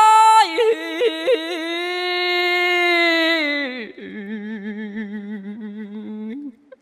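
Khmer smot chanting by a solo male voice: a long high note with quick ornamental turns, then, about four seconds in, a drop to a lower note held with a wavering vibrato that breaks off near the end.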